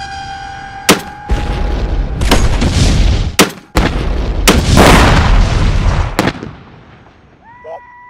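A .50-calibre rifle shot sets off a huge tannerite binary-explosive charge: a sharp crack, then a series of deep booms, each followed by heavy rumbling. The blast is heard again and again, cut from several camera positions, before the rumble dies away.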